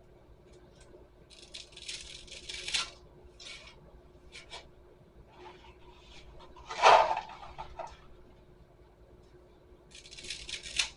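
Bundles of dry spaghetti being snapped in half, crackling in bursts early on and again near the end, with short sharp snaps between. A louder clatter comes about seven seconds in, over a faint steady hum.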